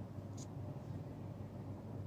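Steady low background hum with one faint, light high tick about half a second in.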